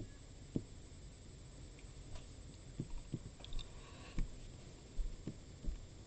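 Soft, irregular knocks and clicks, about one a second, from hand-drawing letters on a computer, with a short run of sharper clicks about three and a half seconds in, over a faint steady hum.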